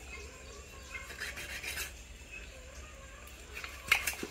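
Knife scraping and slicing through raw chicken against a wooden chopping block while cutting the meat off the bone, a faint rasping, with a couple of sharp knocks of the blade on the block near the end.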